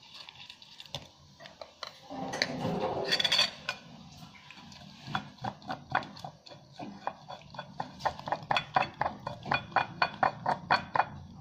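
A utensil clinking against a bowl, a regular run of sharp taps about three a second through the second half. Before that, about two seconds in, a louder rough scraping rustle.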